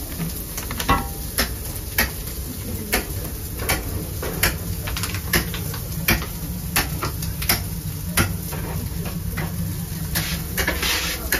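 Knife chopping on a cutting board, a sharp knock about every three-quarters of a second, over a steady low hum.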